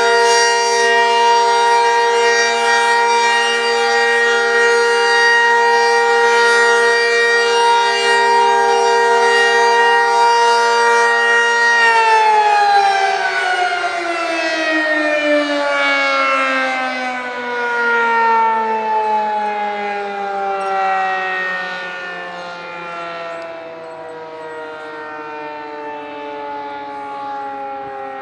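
Outdoor tornado warning siren sounding a steady tone, then about twelve seconds in it shuts off and winds down, its pitch falling slowly as the rotor spins down.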